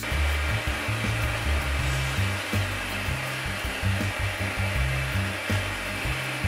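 Hair dryer blowing steadily on the dog's coat, a constant hiss with a faint high whine, as the fur is brushed dry.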